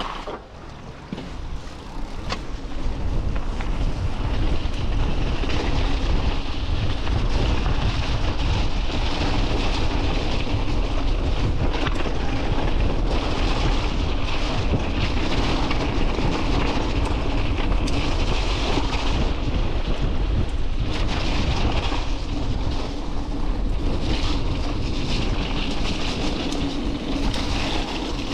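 Mountain bike riding fast over a wet trail: continuous tyre rumble and rattling of the bike over rough ground, with wind buffeting the action-camera microphone. It gets louder about three seconds in as the bike picks up speed.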